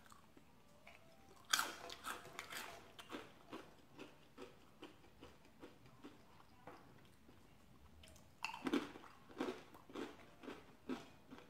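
A person biting into and chewing Frito corn chips with chili, with crunchy bites. A loud crunching bite comes about a second and a half in, followed by chewing crunches about twice a second. A second bite comes about eight and a half seconds in, and more chewing follows.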